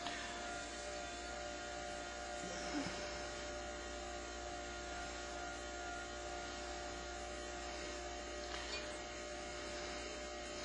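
Electric potter's wheel running with a steady hum.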